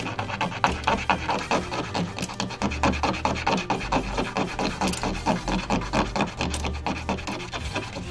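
Tip of a thin styrene plastic tube rubbed on sandpaper in quick, rhythmic back-and-forth strokes, a steady scratchy rasping as the end is sanded into a rounded tip.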